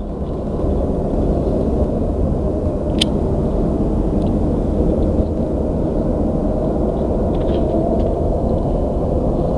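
A steady low rumble that swells over the first second and then holds, with one sharp click about three seconds in.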